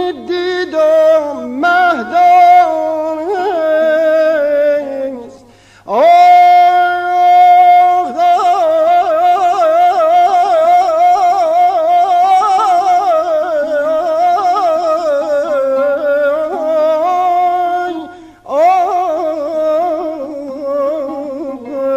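Male Persian classical avaz singing in dastgah Shur: long held notes on a vowel, with fast wavering ornaments and vibrato. The voice breaks off twice for breath, at about six and eighteen seconds in.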